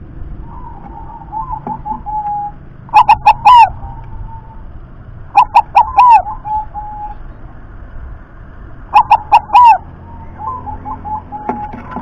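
Zebra dove (perkutut) cooing. Three loud bursts come about three seconds in, five and a half seconds in and nine seconds in, each a quick run of about four coos, with softer cooing trills between them.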